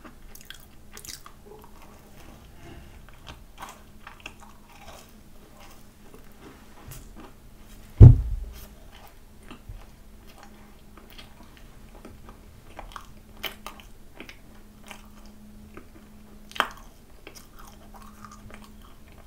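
Close-miked chewing of a mugwort anbutter macaron, with many small clicks and crackles from the mouth. One loud, low thump comes about eight seconds in.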